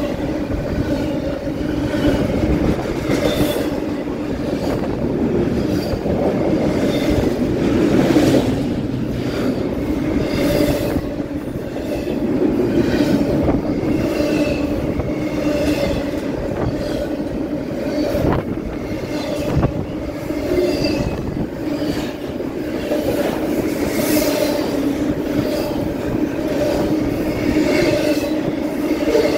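Double-stack intermodal freight cars rolling past close by: a steady rumble of steel wheels on rail with a continuous droning tone, and a few clanks now and then.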